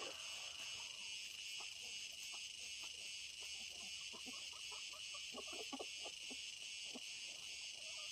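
Steady, high-pitched insect chorus, with scattered light clicks and taps, thickest about four to six seconds in.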